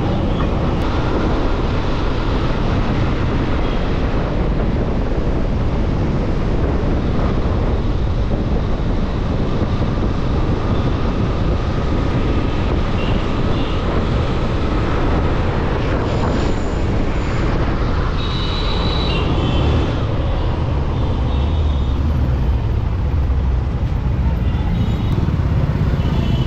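Loud, steady engine and road noise of a moving road vehicle.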